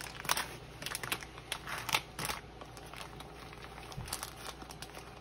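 Resealable plastic bag crinkling in irregular crackles as hands open it and reach in for pepperoni slices. The crackling is busiest in the first couple of seconds and thins out after.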